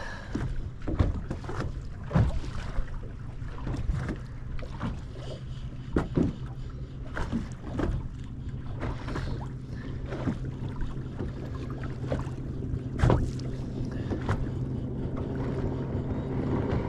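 Water slapping and knocking irregularly against the hull of a bass boat, over a steady low hum that grows a little stronger near the end.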